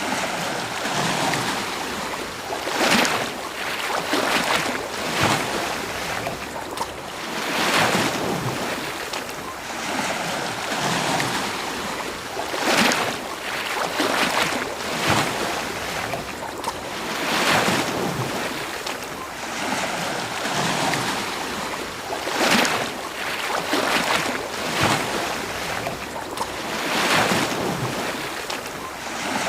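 Ocean surf: waves breaking and washing up a beach, a steady hiss that swells with each wave every few seconds.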